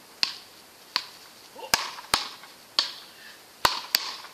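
Wooden paddle rackets hitting a ball back and forth in a fast rally: seven sharp cracks, some in quick pairs, others nearly a second apart.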